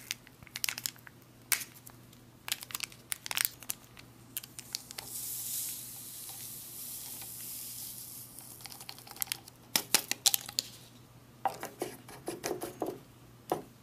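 A lemonade beverage powder packet torn open at its notch and crinkled in the hands, then a few seconds of soft hiss as the powder is poured into a plastic water bottle, followed by clicks and knocks as the bottle is capped and handled.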